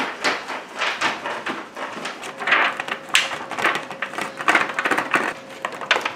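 A stick of butter rubbed back and forth over a thin disposable aluminium foil baking pan, the foil crinkling and scraping in irregular strokes.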